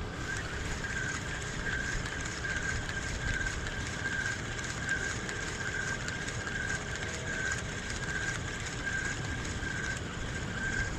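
Fishing reel being cranked to retrieve a lure: a steady whirring tone that pulses about twice a second with the turns of the handle, over low wind rumble.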